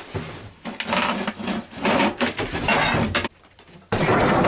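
Junk being shifted and handled: rough scraping and clattering of objects, breaking off briefly, then a sudden loud clatter near the end.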